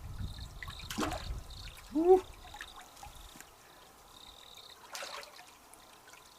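Water trickling, with a man's short exclamation about two seconds in, as a hooked fish is played.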